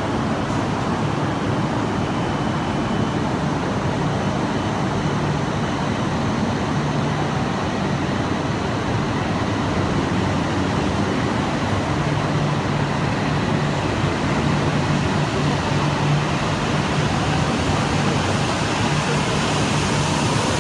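Steady mechanical rushing noise with a low hum on an underground Shinkansen station platform, staying level throughout with no train clearly arriving or leaving.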